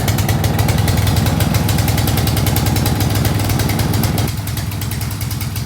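Small single-cylinder gas engine of a Husky 2600 psi pressure washer running fast and rough just after being pull-started, on full choke. About four seconds in, its sound softens.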